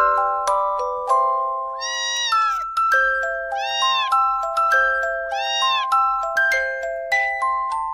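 Background music, a light melody of short ringing notes, with three cat meows, each rising then falling in pitch, starting about two seconds in and spaced under two seconds apart.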